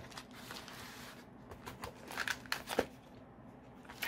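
Small clear plastic zip-lock bag of metal mounting hardware crinkling and rustling as it is handled, with a few sharp clicks and crackles in the middle and near the end.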